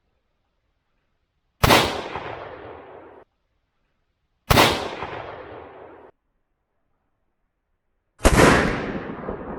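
Three loud rifle shots about three seconds apart, each a sharp crack followed by a rolling echo that dies away; the first two echoes cut off abruptly.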